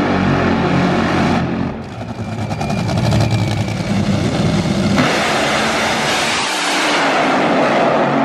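Top Fuel dragsters' supercharged, nitromethane-burning V8 engines running at the starting line. About five seconds in comes a sudden, very loud full-throttle launch, and the noise then carries away down the track.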